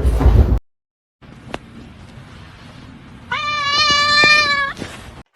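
A loud knock at the very start, then, about three seconds in, one long drawn-out animal call of about a second and a half, held at a steady pitch with a slight waver.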